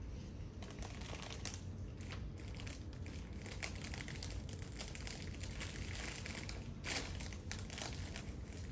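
Scattered, irregular rustling and crinkling of handled packaging, over a steady low room hum.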